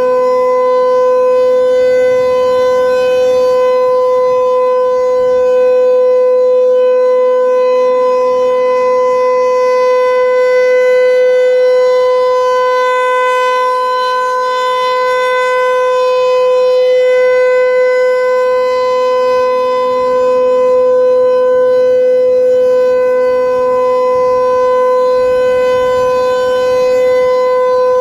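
Federal Signal 508 rotating electromechanical warning siren sounding its steady alert signal: one sustained, unwavering tone with strong overtones. The horn sweeps round, so the loudness swells and fades gently.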